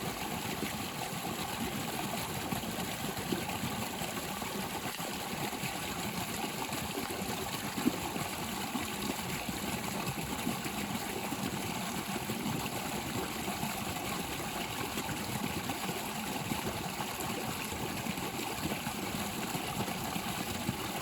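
Small creek waterfall, water rushing and splashing steadily, with one brief click about eight seconds in.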